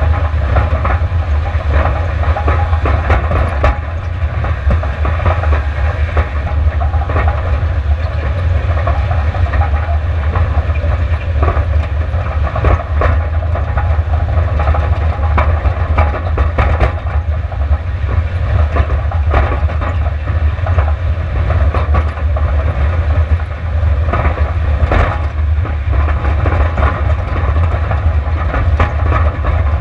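Subaru Outback driving fast over a rough, rocky dirt track: a loud, steady rumble with frequent knocks and rattles as rocks and the suspension take the bumps.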